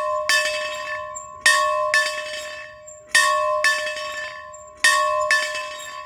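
A large bell being rung steadily, its clapper striking in pairs about half a second apart, each pair coming about every second and a half to two seconds and ringing on as it dies away. A faint high squeak comes from the bell's mounting between strokes.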